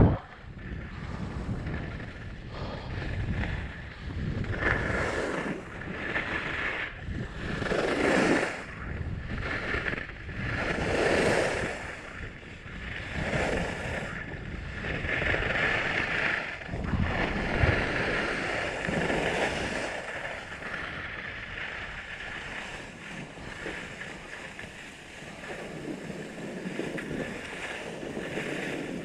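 Skis carving and scraping over groomed snow: a hiss that swells and fades with each turn, roughly every one to two seconds, over wind rushing across a GoPro's microphone. The turns get quieter and steadier after about twenty seconds.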